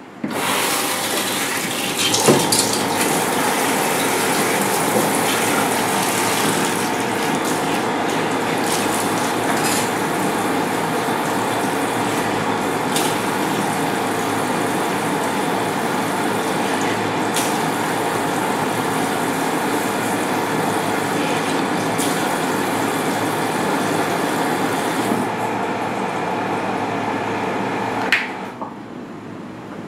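Tap water running steadily into a salon shampoo basin, starting abruptly at the start and shutting off about 28 seconds in, with a few faint clicks along the way.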